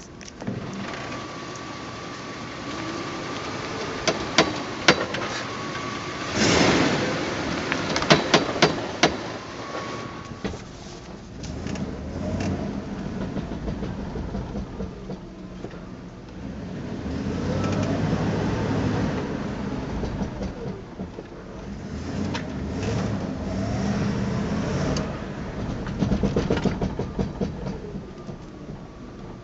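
Front end of a Jeep Grand Cherokee popping and clicking in several quick clusters, over the vehicle running, with a whine that rises and falls in pitch in between.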